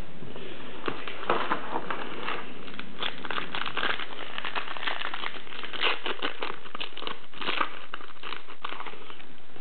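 Foil wrapper of a 1998-99 Flair Showcase basketball card pack crinkling and crackling as it is torn open by hand, with busier bursts of crackle about three to four seconds in and again near seven seconds.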